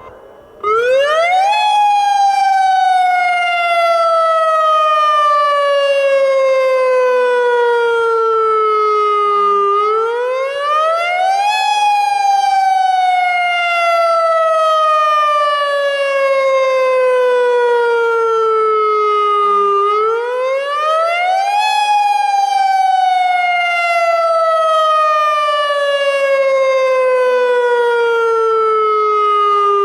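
Federal Signal Modulator electronic tsunami warning siren sounding its wail, the alert tone used in real tsunami emergencies. It starts under a second in. Its pitch climbs quickly, then falls slowly, and repeats about every ten seconds.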